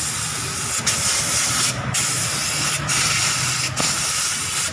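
Pressurised spray hissing steadily while the dirty valve body of an automatic transmission is cleaned, broken by three short gaps.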